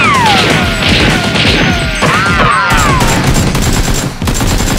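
Movie-style automatic gunfire sound effects laid over toy blasters: a rapid string of shots with whistling whines that fall in pitch. About two seconds in there is a whine that rises and then falls, like a ricochet.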